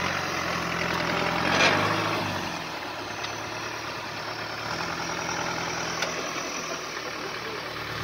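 Off-road competition vehicle's engine running, louder over the first two seconds with a rushing swell about one and a half seconds in, then settling to a lower, steadier note.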